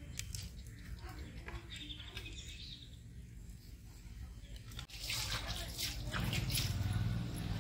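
A wood fire crackling faintly with a bird trilling. About five seconds in, louder, denser bird chirping sets in over a low steady hum.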